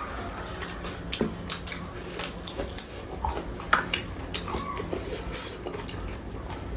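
Eating sounds: chewing and crunching on roast chicken meat and bones, with scattered small clicks and clinks from the plate.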